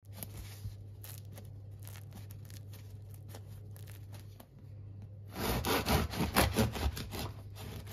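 Crust of a wholegrain wheat-and-rye loaf crackling with small scattered clicks as fingers press it. About five seconds in, a knife starts sawing back and forth through the crust, a louder, rapid scraping.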